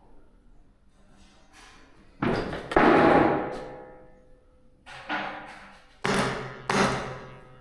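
Five loud impacts, each ringing out for about a second: two close together about two seconds in, the second the loudest, then three more from about five seconds in.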